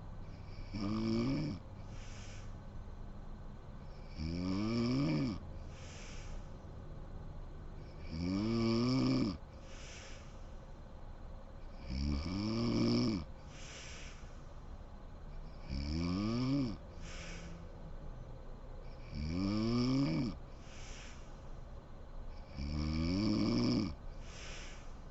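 A sleeping woman snoring in a steady rhythm: seven snores about four seconds apart, each about a second long and rising in pitch as she breathes in, with a softer breath out between them.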